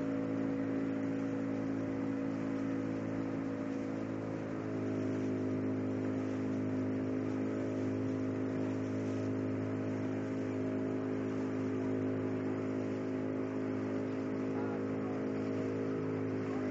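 Speedboat engine running at a steady drone, its note stepping up slightly about four and a half seconds in, with a steady hiss above it.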